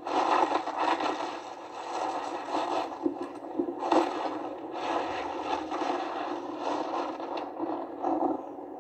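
Downhill race skis scraping over the snow in uneven surges, the course sound of a TV ski broadcast heard through the television's speakers.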